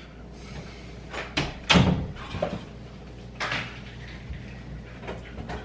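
A door opening, then a handful of separate knocks and thumps, the loudest a little under two seconds in, with a short scraping rustle about three and a half seconds in, as a person handles clothes in a front-loading laundry machine.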